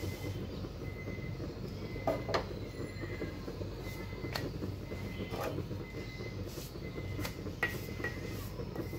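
A wooden spatula scraping and tapping on a black iron pan as rutis are turned, about half a dozen short scrapes and taps with the loudest pair about two seconds in, over a steady low rumble.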